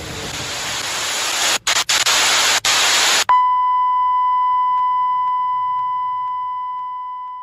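Loud hiss of static, a glitch-transition sound effect, with a few brief dropouts. A little over three seconds in it cuts to a steady high beep tone that holds and slowly fades.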